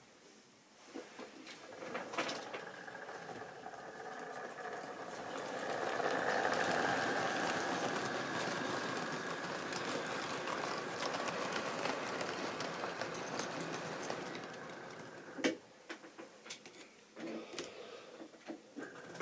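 Model railway freight train running past close by: the locomotive's small electric motor whirs and the tank wagons' wheels click over the rail joints. The sound builds up, stays steady for several seconds, then falls away with a sharp click, leaving a few scattered clicks.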